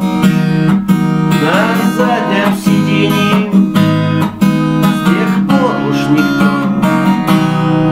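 Acoustic guitar strummed steadily, with a man singing over it in phrases.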